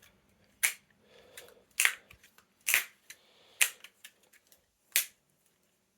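Custom Lego-brick balisong trainer being flipped by hand, its plastic handles slapping shut with five sharp clacks about a second apart.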